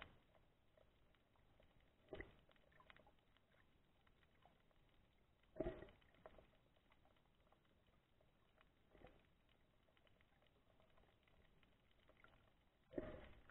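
Near silence underwater, broken by a few brief muffled noises: one about two seconds in, a louder one a little before the middle, a fainter one later, and a longer louder stretch just before the end.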